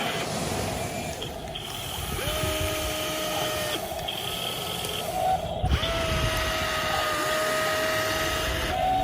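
Small electric motors of a radio-controlled toy excavator whining in separate runs, each starting and stopping abruptly as different movements are driven, over a low rumbling noise.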